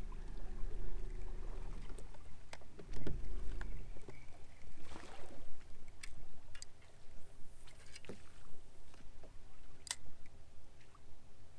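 Scattered small clicks and knocks of a spinning reel and tackle on a bass boat's deck, over a faint steady hum.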